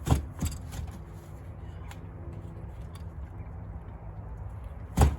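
Sharp knocks over a steady low hum: two close together at the start and one near the end.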